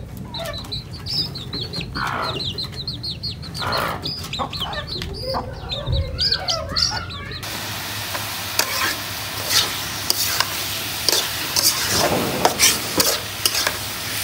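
Chickens clucking and chirping. About halfway through, the sound changes abruptly to chopped red amaranth (lal shak) sizzling as it fries in a pan, with a spatula clinking and scraping against the pan.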